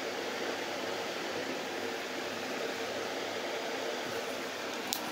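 Steady background hiss with a single short click near the end.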